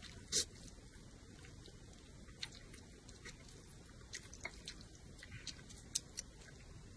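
A person eating noodles: one short slurp of noodles just after the start, then chewing with soft, wet mouth clicks and smacks.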